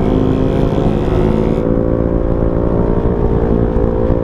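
Motor scooter engine running under way, its pitch rising slightly and then holding steady, with wind rumbling on the helmet-mounted microphone.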